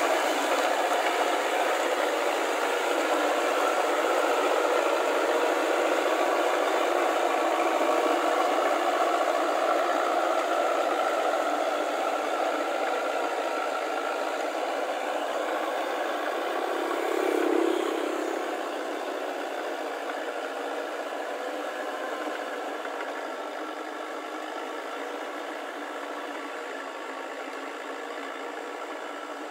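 Tractor on crawler tracks pulling a rotary tiller: the engine runs steadily under load with rattling and clatter from the tracks and tiller. The sound slowly fades as the tractor moves away, with a brief swell about two-thirds of the way through.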